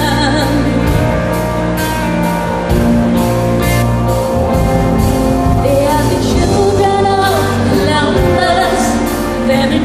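Pop song played by a band, with singing over a steady drum beat.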